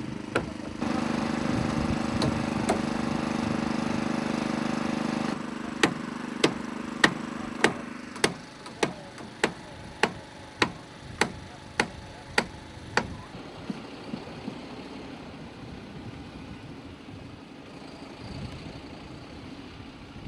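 An engine idling steadily, louder for the first few seconds. From about six seconds in, about a dozen sharp knocks come at an even pace, a little under two a second, loudest at first and fading out.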